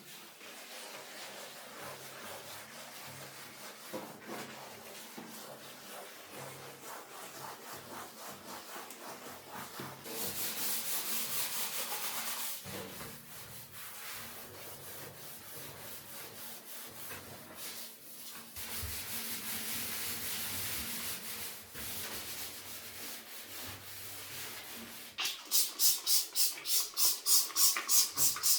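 Scrubbing a bathtub surface by hand, a steady rubbing and scraping that comes and goes in stretches; near the end it turns into loud, quick back-and-forth strokes, about three a second.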